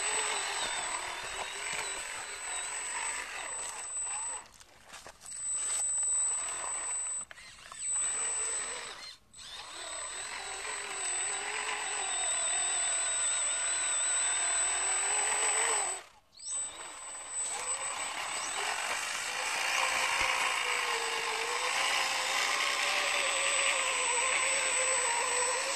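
Electric drive motors and gearboxes of a homemade radio-controlled 6x6 model farm truck whining as it drives under a load of sacks. The pitch wavers up and down with the load, and the sound breaks off briefly a few times.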